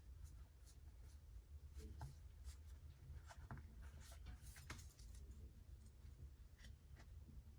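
Near silence: room tone with a low hum and faint, scattered small ticks and clicks at irregular times.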